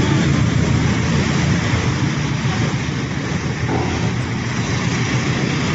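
A vehicle running steadily, a continuous low rumble with a hiss above it.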